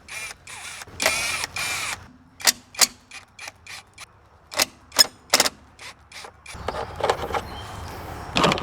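Hand tools and metal parts being worked while a cover is unfastened from a riding lawn tractor: a run of sharp clicks and knocks, with two short rasping stretches about a second in.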